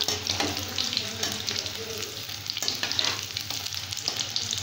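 Crushed garlic cloves sizzling and crackling as they deep-fry in hot oil in an aluminium kadai.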